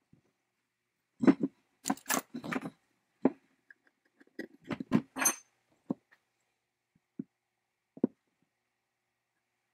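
Knocks and metallic clinks from handling a Strunk electric chainsaw's parts as they are taken apart, with a steel rod being worked out of its housing. They come irregularly, busiest in the first half with a few ringing clinks, then thin to a few single taps.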